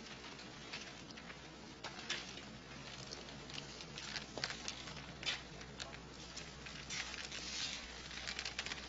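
Faint scattered taps, clicks and rustling from people moving cautiously on foot, over a low steady hum.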